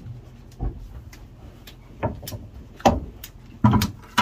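Sharp knocks and bangs of calf feeding in a wooden barn, from a plastic feed bucket and the calves' wooden stall boards: about five sudden strikes, the loudest near three and three-and-a-half seconds in, with lighter ticks between.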